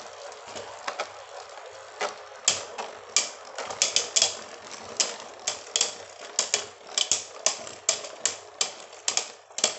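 Two Beyblade spinning tops battling in a plastic stadium: sharp, irregular clacks as they strike each other and the stadium, over the steady hiss of their spinning. From about two seconds in the hits come quicker, several a second.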